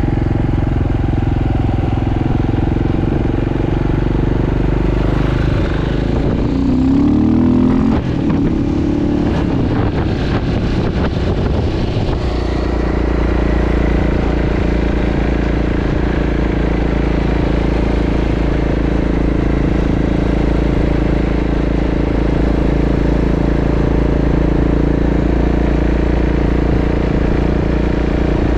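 Engine and road noise of a vehicle being driven along at road speed. It holds steady apart from a stretch about six to twelve seconds in where the pitch shifts and some knocks or rattles come through, after which a deeper, steady rumble settles in.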